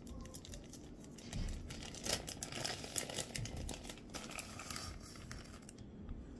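Plastic bag of shredded sharp cheddar crinkling and crackling as it is torn open and handled.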